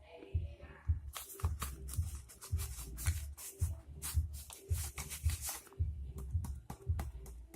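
Background music with a steady beat, over light rustling and scraping sounds.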